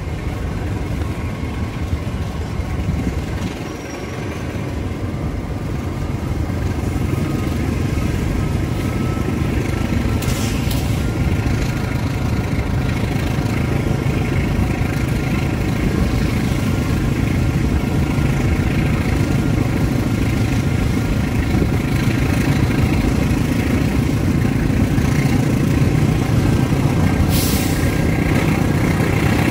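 Argo Semeru passenger train running along the track: a steady rumble that grows louder over the first several seconds, as if gathering speed, and then holds even.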